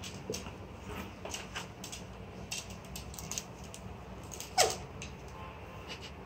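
Light clicks and scuffs of a pet playing on a wooden floor. About three quarters of the way through comes one short, high cry that falls quickly in pitch.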